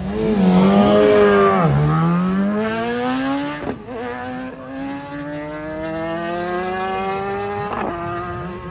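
Motorcycle engine accelerating hard through the gears on a quarter-mile sprint. The note climbs steadily and drops at each upshift, about two, four and eight seconds in.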